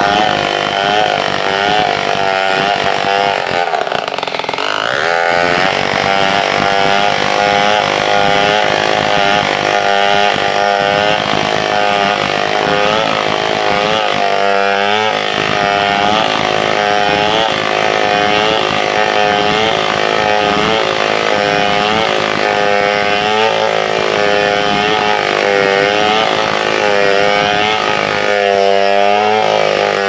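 Stihl 070 two-stroke chainsaw running at high revs while cutting a log, its pitch wavering up and down as the chain bites and eases under load. About four seconds in, the revs drop sharply and then climb back.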